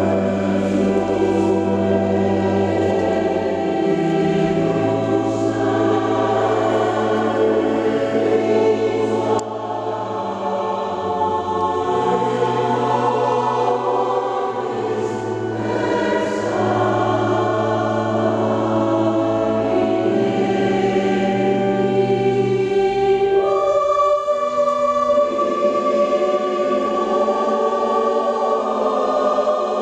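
Mixed choir of men and women singing a hymn-like piece in sustained, held notes, with the long echo of a large church.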